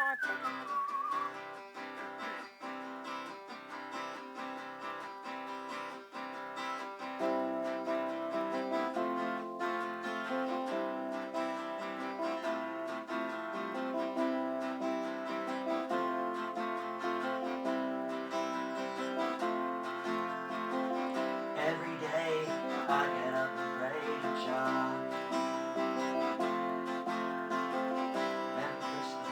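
Guitars strumming a song, the playing filling out and getting louder about seven seconds in.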